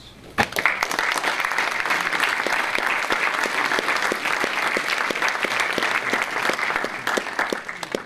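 Audience applauding: dense clapping that starts about half a second in and stops just before the end.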